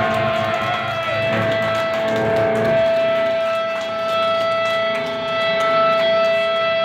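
Amplified electric guitar played live by a metal band, one long note held and ringing steadily over quieter playing underneath.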